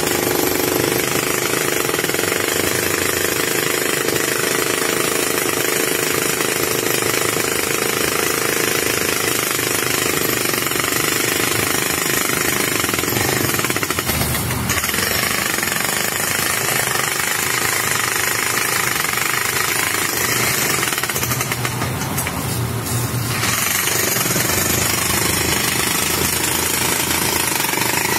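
Jackhammer running continuously with a loud, rapid, steady hammering.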